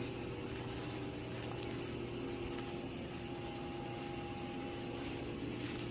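Steady mechanical hum with a few faint held tones, unchanging throughout.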